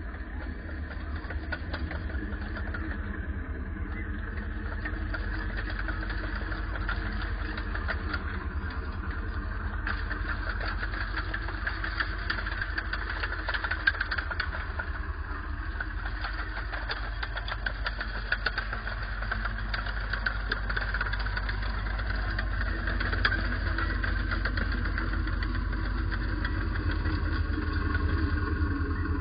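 Bergepanther armoured recovery vehicle driving past: the engine runs steadily under a dense, fast clatter of the tracks, growing a little louder near the end.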